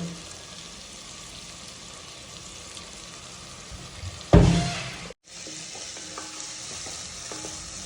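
Crushed small onions and garlic sizzling in hot oil in a pan as they sauté, with one loud knock about four seconds in, like a spoon striking the pan. The sound drops out for an instant just after, then the sizzling carries on.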